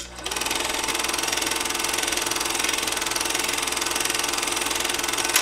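A machine running with a steady, fast, even clatter. It starts with a click, builds up within a moment, and stops with a click near the end.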